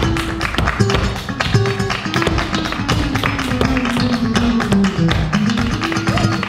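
Flamenco music with guitar, over a dense run of sharp percussive taps.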